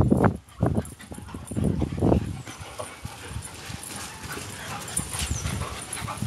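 Several dogs playing rough together, with short dog vocalizations and scuffling. The loudest sounds are a few low bursts in the first two seconds, then it settles into quieter scuffling.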